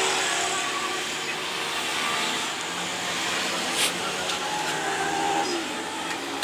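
Steady hissing whir of a small motor, with a sharp click about four seconds in.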